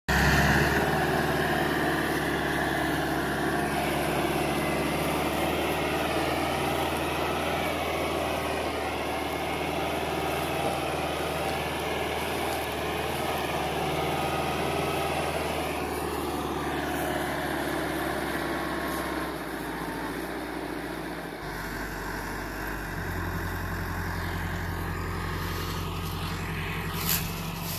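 Massey Ferguson 385 diesel tractor engine running hard under heavy load, pushing a pile of sugarcane trash with its front wheels lifted and black smoke at the exhaust. The engine note shifts around twenty seconds in and settles into a steadier, deeper drone.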